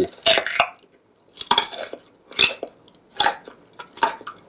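Carrot-eating ASMR track played through an SKT NUGU Candle smart speaker: crisp crunches of carrot being bitten and chewed, about once a second.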